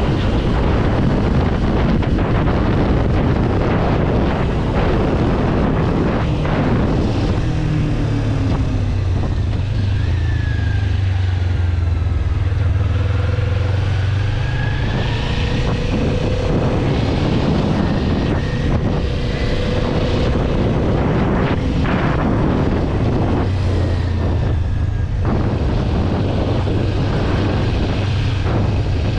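Kawasaki 400 naked bike's parallel-twin engine running at a steady highway cruise, with a low engine hum under heavy wind noise on the microphone.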